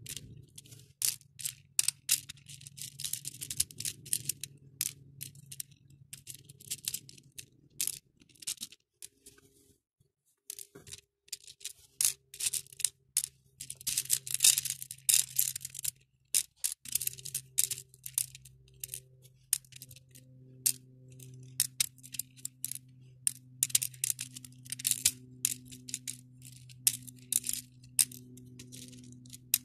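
Plastic acrylic beads clicking and rattling against each other and a clear plastic compartment tray as fingers sort through them, in quick irregular clusters with a short lull about ten seconds in.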